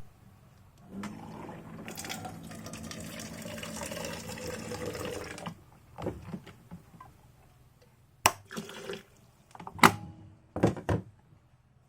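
Water pouring into a container for about four and a half seconds, its pitch creeping slowly upward as it fills, followed by a few sharp clicks and knocks.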